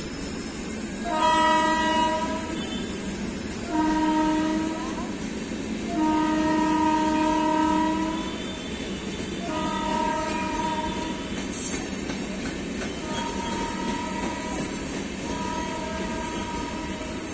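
Electric locomotive horn sounding six separate blasts of one to two seconds each, the first three loudest, over the steady rumble and rail clatter of passenger coaches rolling past.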